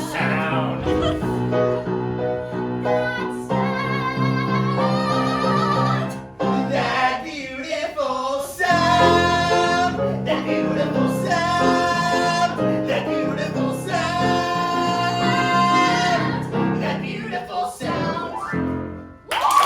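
Musical number with singing: long held, wavering sung notes over a full backing accompaniment, cutting off just before the end.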